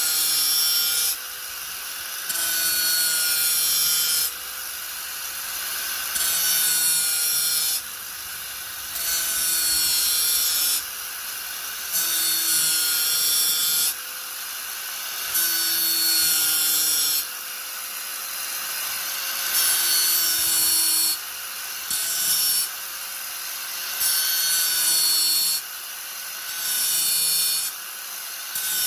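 Angle grinder running at a steady whine, repeatedly biting into the workpiece in grinding passes of about two seconds each, roughly every three seconds, with the motor note continuing between passes.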